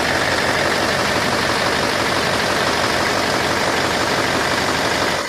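Isuzu 8PE V8 diesel engine running steadily at an even speed after a restart.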